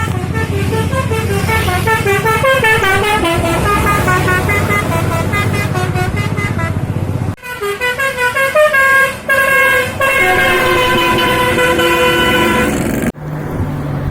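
Bus 'telolet' multi-tone air horn (basuri type) playing a quick stepping melody over the bus engine's rumble, then after a brief break a second tune with longer held notes that cuts off suddenly near the end, leaving the engine rumble.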